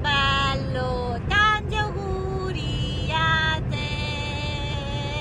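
Singing, with wavering sung notes and a long held note near the end, over the steady low rumble of a car on the road.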